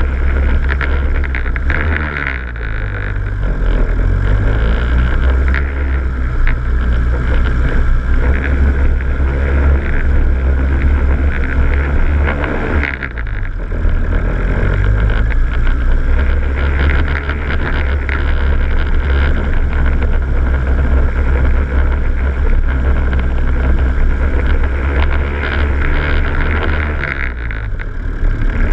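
Vehicle engine running at low speed over a rough, rocky dirt track, heard up close from the bonnet, with constant knocks and rattles from the bumpy ground. The engine note dips and picks up again a few times: about two seconds in, about halfway, and near the end.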